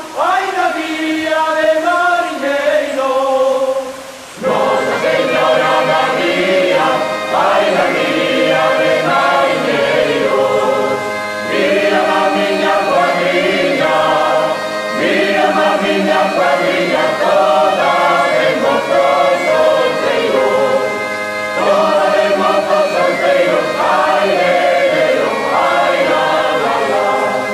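Choral music: a choir singing sustained, many-voiced lines, with a brief softer passage that gives way to the fuller choir about four seconds in.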